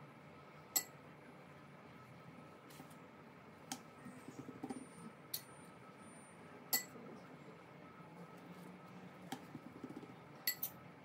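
Quiet sounds of hands working dough on a silicone pastry mat: soft patting and rubbing as the dough is pressed flat, with a handful of light, sharp clicks and taps scattered through.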